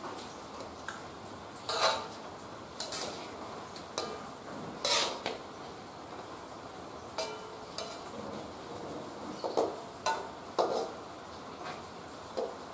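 Metal slotted spatula scraping and clinking against an aluminium wok as chicken pieces in thick soy sauce are stirred and turned, in short irregular clatters every second or two over a steady faint hiss.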